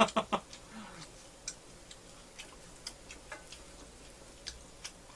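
Scattered light clicks and taps, about eight, spaced irregularly: the small sounds of eating and of a metal utensil working butter-roasted rice cakes in a frying pan.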